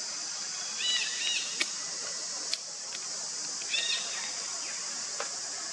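Short, high, chirping animal calls: a pair about a second in and another pair near four seconds, over a steady high-pitched outdoor hiss.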